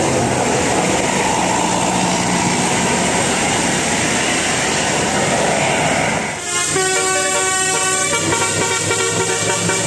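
A steady noisy rumble, then about six seconds in a Basuri telolet bus horn plays a fast melody of quickly changing notes.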